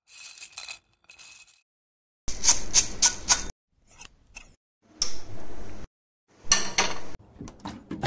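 Dry cornflakes being poured into steel containers: several short bursts of crisp rattling and crackling against metal, each starting and stopping abruptly.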